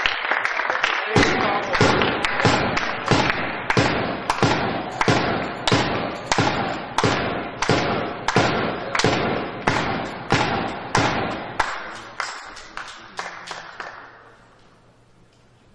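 Spectators clapping in unison in a sports hall, about two claps a second, fading out shortly before the end.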